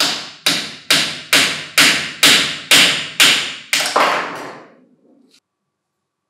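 Wooden mallet striking the steel spindle of a Hitachi G18DSL cordless angle grinder's bearing plate held in a vise. About ten sharp blows come at roughly two a second, driving the spindle out of its bearing, and stop about four seconds in.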